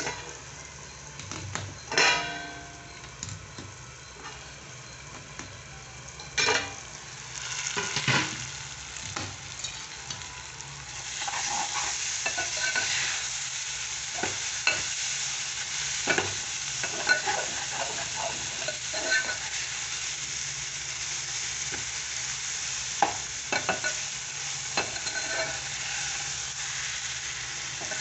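A few sharp metal clanks in the first eight seconds as the steel plate covering the pan is taken off. Then brinjal pieces sizzle in oil in a steel pan while a steel spoon stirs and scrapes the pan.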